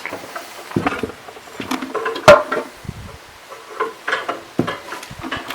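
Scattered knocks and clinks of tools and metal parts being handled, with the loudest clank about two seconds in.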